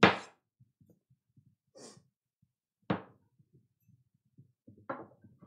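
Chef's knife cutting through radishes and striking the cutting board: two sharp knocks about three seconds apart, with softer handling sounds and a few light taps near the end.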